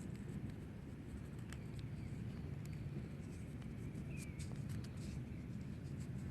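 Faint scratching and scattered light clicks over a low steady rumble, with a brief faint chirp about four seconds in.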